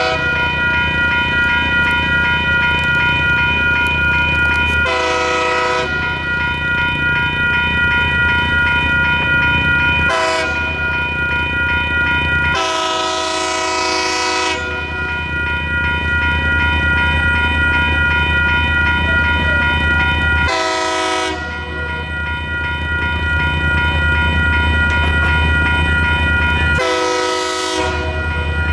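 Railroad crossing's WCH Type 2 electronic bell ringing steadily throughout while an approaching Union Pacific freight locomotive sounds its air horn five times. The blasts are each about a second long, with a short one about ten seconds in and a longer, two-second blast just after it.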